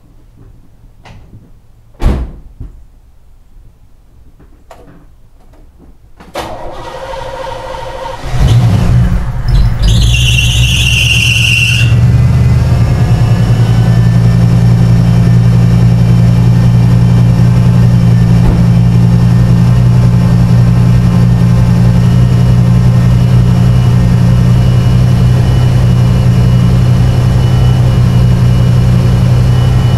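After a few clicks and a loud thump, the 1984 Camaro Z28's carbureted 5.0-litre HO small-block V8 cranks for about two seconds, catches and revs, with a brief squeal from the V-belts as it fires, then settles into a steady idle. It is a cold start of an engine that has been running badly and stalling at idle, which the owner suspects is down to the choke thermostat.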